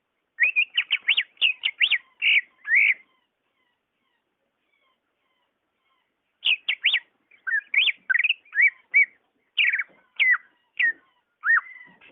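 Greater green leafbird (cucak ijo) singing in two runs of quick, clear whistled notes that slide up and down. The first run lasts about two and a half seconds; the second starts about six seconds in and lasts about five seconds, with a pause between.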